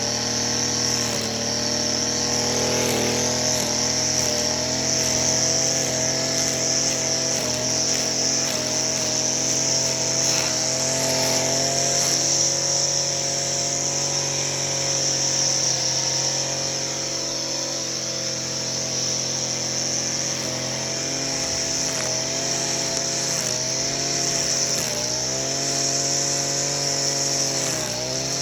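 Echo SRM-225 string trimmer's small two-stroke engine running steadily, with a high whine over it. Its pitch sags and recovers several times in the last few seconds.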